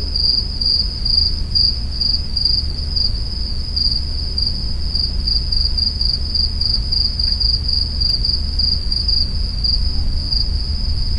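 Cricket trilling: a single high-pitched tone pulsing rapidly and steadily, over a low rumble.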